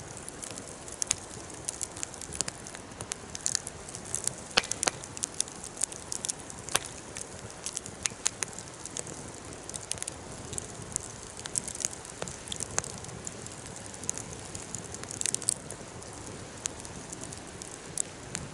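Campfire crackling: irregular sharp pops and snaps over a steady low hiss of burning.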